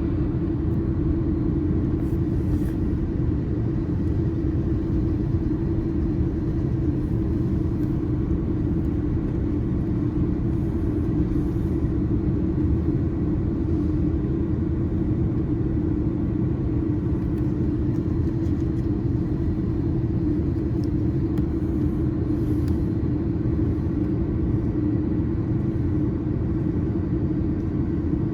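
Steady cabin drone of an Airbus A330-300 airliner: engine and airflow noise, a low rumble with a constant hum through it.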